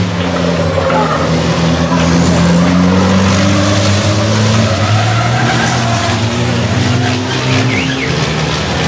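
Diesel engines of several racing trucks running together as they drive past in a group, their overlapping engine notes drifting slowly up and down in pitch.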